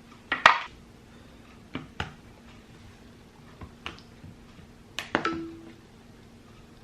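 Scattered clicks and taps of a phone being handled in its new silicone case, several in all, with a short low beep just after the tap about five seconds in.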